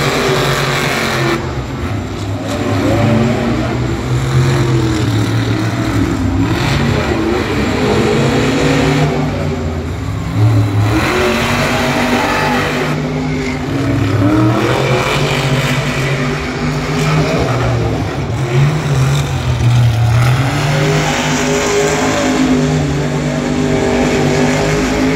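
Monster truck's supercharged V8 engine revving hard, its pitch climbing and dropping again and again over a steady loud rumble.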